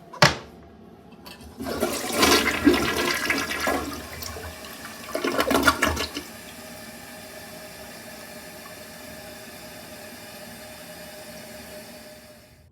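A toilet flushing: a sharp click, then a loud rush of water in two surges, followed by a steady, quieter hiss of water refilling that cuts off near the end.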